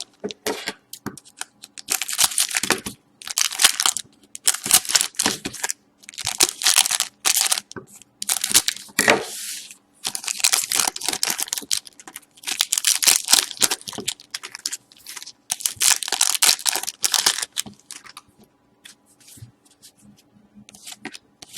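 Trading card pack wrappers being torn open and crinkled, over and over in short rasping bursts, with the cards handled in between. The handling turns to lighter clicks and rustles near the end.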